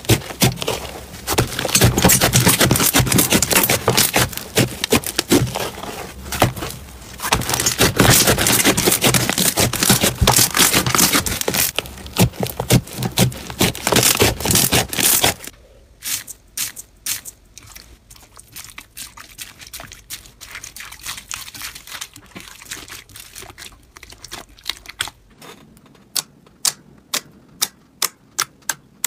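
Hands kneading and squeezing a thick slime, giving a loud, dense crackling. About halfway through it drops to a quieter slime sound, and near the end fingers poke into glossy slime, each poke a sharp pop, about three a second.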